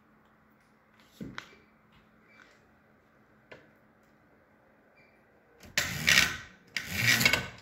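Near-silent room tone with a few faint clicks, then about two-thirds of the way in, two loud rasping rubs, each under a second long.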